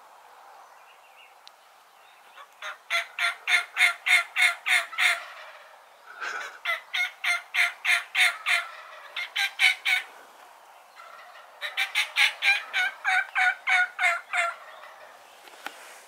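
Wild turkey toms gobbling in three long bouts of rapid rattling notes. The toms are worked up against the fan of what they take for a rival strutting tom.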